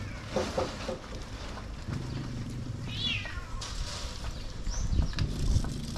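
Short, high-pitched cries from a pet animal, heard twice: a brief call about half a second in and a higher, wavering call about three seconds in, over low rumbling noise.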